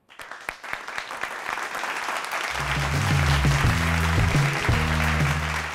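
Studio audience applauding, the clapping building up, with the show's jingle music and its deep bass line coming in about two and a half seconds in.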